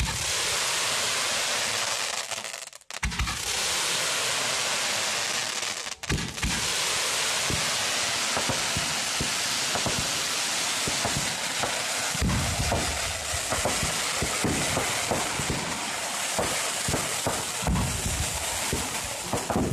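Fireworks display: a continuous hiss of rising comets and fountains, with crackling and low thumps of shells launching and bursting that come thick and fast in the second half. The sound cuts out briefly twice near the start.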